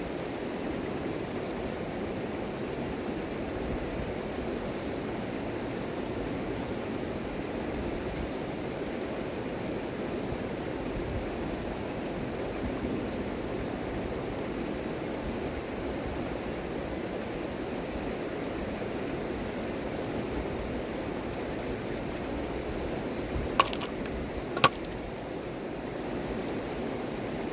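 Shallow river rushing steadily over gravel and stones. Near the end there are two sharp knocks, about a second apart, of stone against stone.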